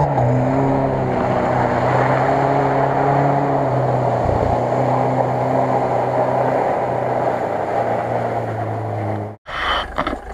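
An off-road 4x4's engine running at steady revs under a steady rushing noise, its pitch dropping slightly just at the start. There is a brief low thump about halfway through, and the sound cuts off abruptly near the end.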